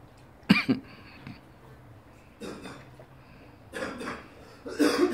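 A loud cough about half a second in, then a few short voice-like sounds, the last and loudest near the end.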